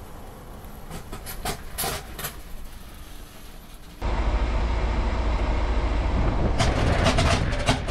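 About four seconds in, a loud, steady, deep rumble of tyre roar and wind on the microphone starts as a coach's front wheel on a Michelin 295/80 R22.5 tyre rolls along asphalt, with a quick run of knocks near the end. Before that, only a low, faint background with a few short clicks.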